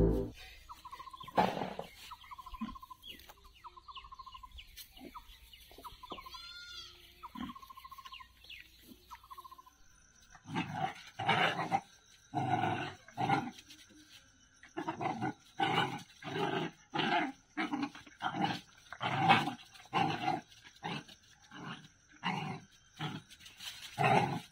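A dog barking over and over, with short loud barks coming about one to two a second, as dogs play-fight. Before the barking, for about the first ten seconds, there are only faint short high squeaks.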